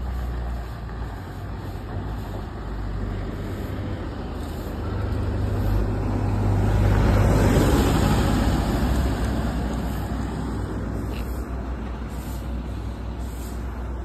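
Tata heavy truck's diesel engine rumbling as the truck drives up close, loudest about seven to eight seconds in, then easing off.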